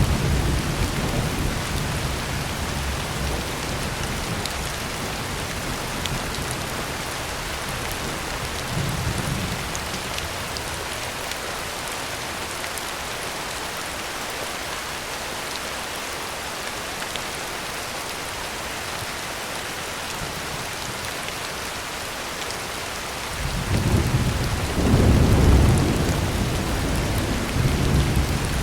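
Heavy rain falling on a tin roof as a steady hiss, with rolling thunder: a rumble dying away at the start, a faint one about nine seconds in, and a louder rumble building about three-quarters of the way through that peaks and rolls on to the end.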